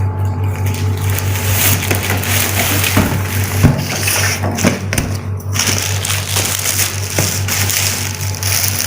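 Cardboard shipping carton and packaging being handled and crushed, with a dense crackle and several knocks as the shoe boxes are pulled out, over a steady low hum.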